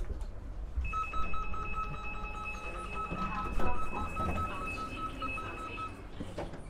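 A regional train's passenger-door warning signal: a rapid electronic beeping, starting about a second in and stopping about five seconds later, as the door opens at the platform. Low rumble and shuffling of people moving to the door underneath.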